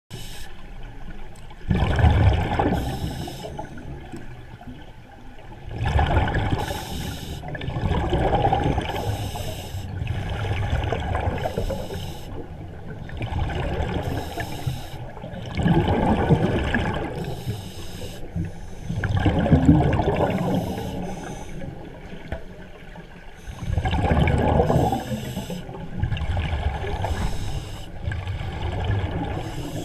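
Scuba diver breathing through a regulator underwater: bubbling, rumbling exhalations in surges every few seconds.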